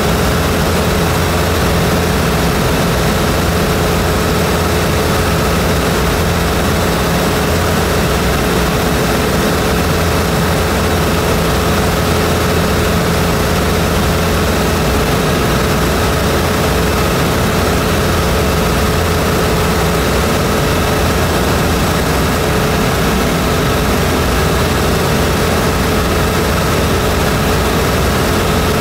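Zenith CH 750 light aircraft's piston engine and propeller running steadily in level flight, heard from inside the cockpit as a constant drone with a few held tones over a hiss of wind.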